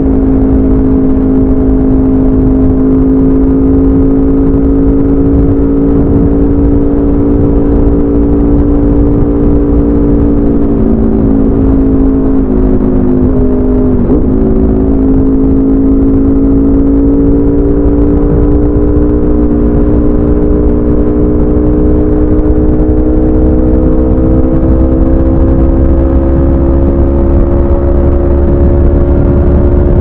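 Aprilia RSV4 RF's V4 engine through a de-catted SC Project CRT exhaust, loud, holding a steady note at cruising speed. The pitch sags slightly around the middle with a brief dip, then climbs gradually over the last third as the bike gently accelerates.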